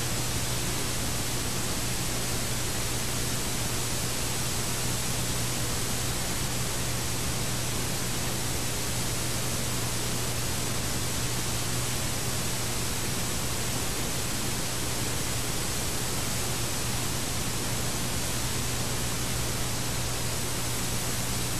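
Steady hiss of a VCR playing a blank, unrecorded stretch of VHS tape, with a steady low hum under it.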